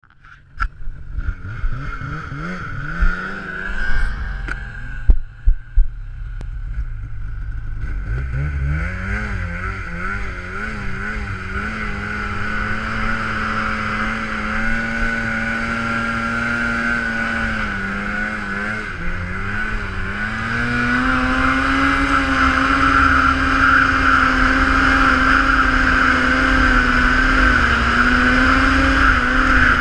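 Polaris snowmobile engine running under throttle on a climb, its pitch rising over the first several seconds, then held high with a wavering pitch and stepping up louder about two-thirds of the way through. A steady high whine runs over it, and a few sharp knocks come in the first six seconds.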